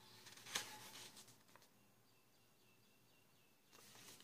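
Paper booklet pages rustling and being flipped by hand, with a sharp click about half a second in and more rustling near the end. Faint high chirping in between.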